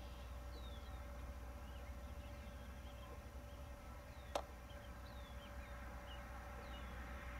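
Faint small birds chirping in short, scattered calls over a low steady rumble, with a single sharp click about four seconds in.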